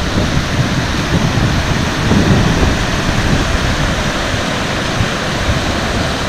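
River rapids rushing steadily over rock ledges, with wind gusting on the microphone.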